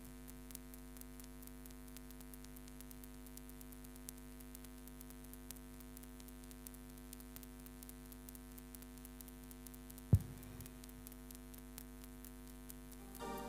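Steady electrical hum and buzz from a live-stage PA sound system left open between songs, with a faint crackle and one sharp thump about ten seconds in.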